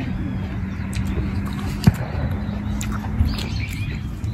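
A crisp, juicy apple being chewed with the mouth closed, with a long, steady, low hummed 'mmm' of enjoyment and a few sharp crunching clicks, over a steady low rumble.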